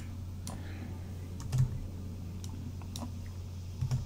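Computer keyboard keys tapped a few at a time, about six scattered clicks, while numbers are typed in. A steady low hum runs underneath.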